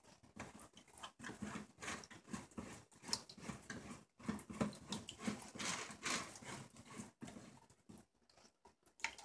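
Long metal spatula smearing and scraping Swiss meringue against the side of a cake: faint, irregular squishy scrapes.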